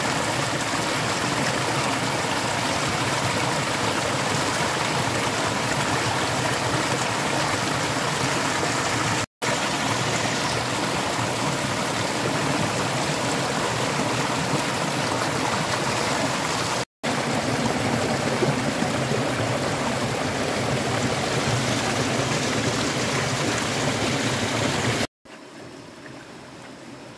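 Shallow rocky stream running close by, a steady rush of water. It cuts out for an instant twice, then goes on much quieter near the end.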